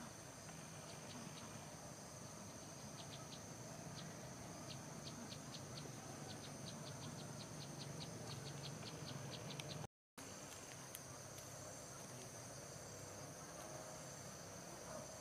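Faint insects: a steady high-pitched trill with a run of quick chirping ticks that speed up to about four a second, stopping about ten seconds in, where the sound drops out completely for a moment.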